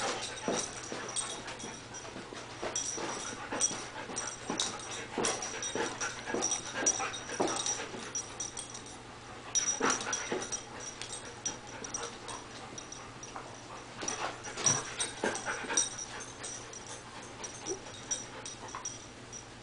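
A golden retriever making short, irregular play noises as it lunges and bounces at a cat.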